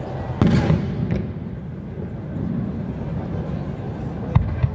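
Aerial firework shells bursting: a loud boom about half a second in that rumbles away, a smaller crack just after, and two sharp bangs in quick succession near the end.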